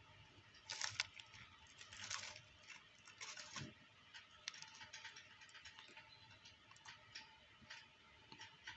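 A tortoise biting and chewing vegetables: faint, irregular crunches and clicks, with louder bites about one, two and three and a half seconds in.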